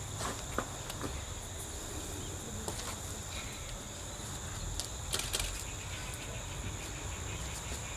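Crickets or other insects chirring in a steady high-pitched drone, with a few faint clicks scattered through it.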